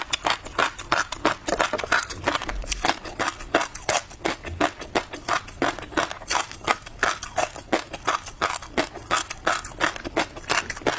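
Tobiko (flying fish roe) being chewed close to the microphone, the tiny eggs crunching and popping in a rapid, unbroken run of crisp clicks, several a second.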